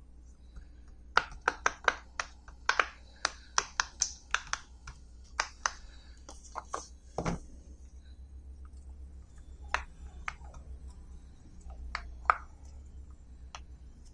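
Silicone pop-it fidget toy bubbles being pressed through with the fingertips, giving a run of quick, irregular pops: thick for the first several seconds, then a few scattered pops.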